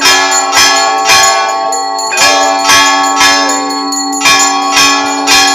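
Temple bells rung rapidly during an aarti, about two strikes a second, the ringing of each strike running into the next.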